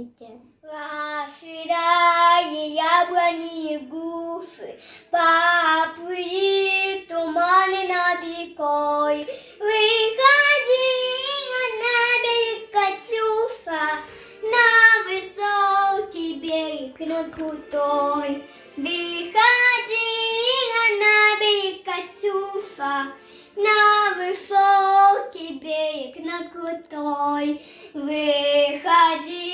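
A small girl singing a song solo in a high child's voice, phrase by phrase with short breaks for breath.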